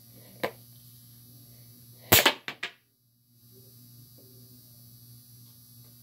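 Scissors cutting through the plastic tip of a white glue bottle: a faint click, then a quick run of three or four sharp snaps about two seconds in.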